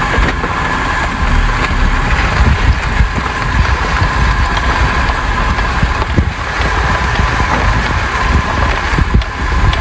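Steady low rumble of a car's engine and road noise heard inside the cabin, with a faint steady whine over it.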